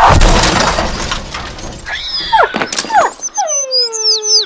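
Cartoon crash sound effects: a loud smash with breaking as the fox slams into the ground, followed a couple of seconds later by several quick falling whistle slides and a longer falling tone. High cartoon bird chirps start near the end.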